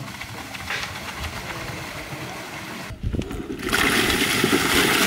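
Water pouring from metal pots into a large steel tray. About three and a half seconds in, a much louder rushing splash as bowlfuls of cut green banana pieces are tipped into the water.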